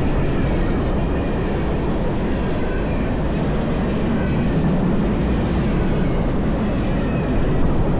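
CSX freight train rolling past at speed: a steady rumble of wheels on rail.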